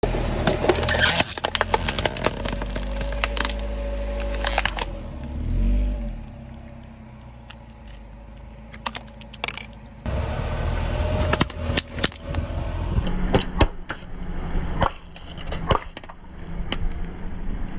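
Car tyre rolling slowly over plastic objects on asphalt, a tub of highlighter pens and squeeze bottles of glue, with repeated sharp cracks and crunches of plastic being crushed over the low running of the car. The sound jumps at several cuts, with a quieter stretch in the middle.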